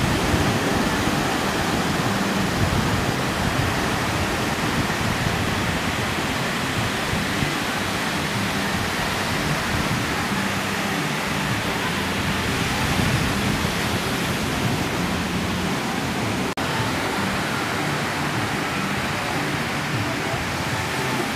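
Steady wash of surf breaking on a beach. The sound cuts out for an instant about two-thirds of the way through.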